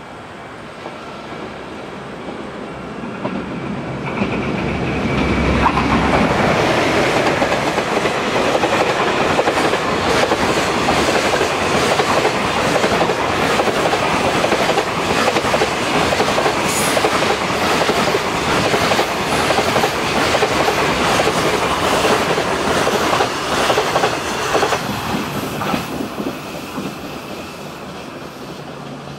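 An EF510 electric locomotive hauling a long container freight train passes at speed. The sound builds over the first few seconds as it approaches, then the wagons' wheels run over the rail joints in a steady clickety-clack for about twenty seconds, fading away near the end as the last wagon goes by.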